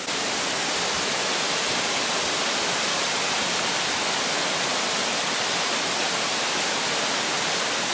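Waterfall plunging into a rock pool: a steady rush of falling water, more hiss than deep rumble, with no let-up.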